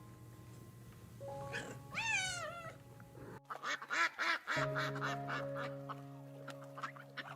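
A cat meows once, then a duck gives a fast run of quacks about a second later, over background music with long held notes.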